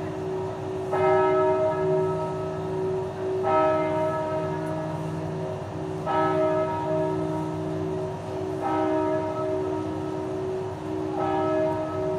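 Bell of the Notre-Dame Cathedral Basilica of Saigon tolling in an even, slow rhythm: five strokes about two and a half seconds apart, each ringing on under the next.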